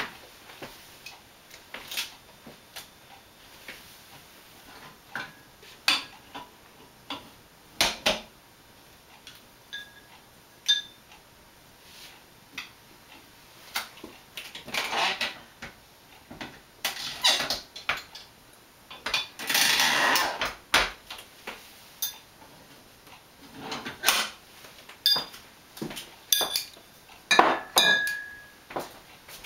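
Glass wine bottles knocking and clinking as they are handled, with two longer noisy strokes about halfway through as the lever of a floor-standing wine corker drives corks home.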